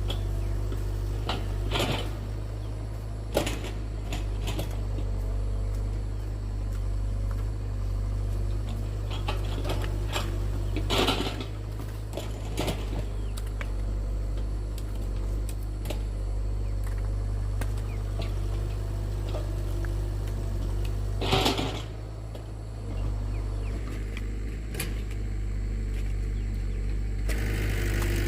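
A motor or engine running steadily at a low hum, with a few sharp knocks now and then.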